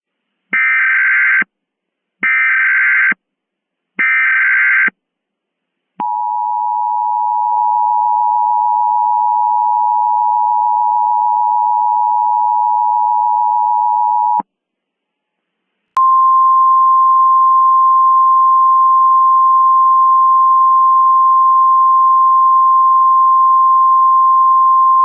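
Emergency Alert System tones: three short, buzzy bursts of header data about a second apart, then the two-tone attention signal held for about eight seconds. After a short gap, a single steady alert tone, slightly higher in pitch, holds for about nine seconds.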